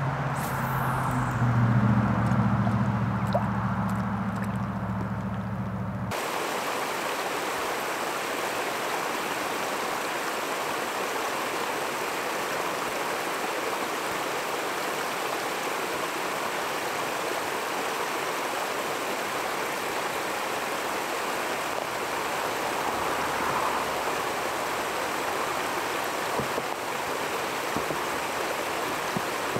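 A steady low hum for about the first six seconds, which cuts off abruptly. After it comes a steady, even rush of water that does not change.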